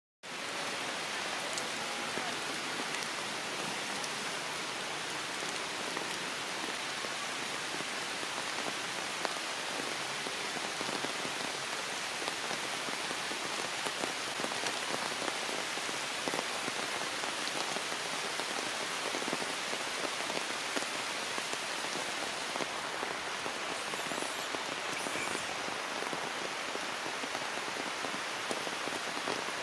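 Heavy rain falling steadily: a dense, even hiss peppered with fine ticks of individual drops.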